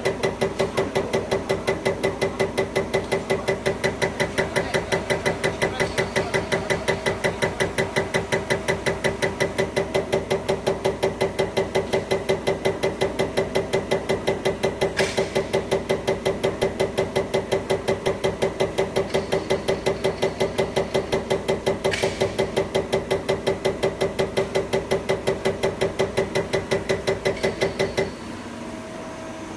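CAT 387-9433 HEUI injector firing on a CAT900 test bench during a test run: a rapid, even ticking several times a second over a steady hum from the bench. It cuts off suddenly near the end as the test is stopped.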